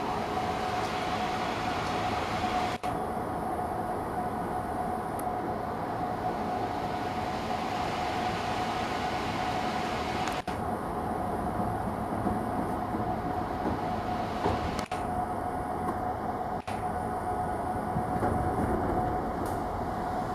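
Steady machine-like rumble with a constant hum, broken by a few abrupt cuts.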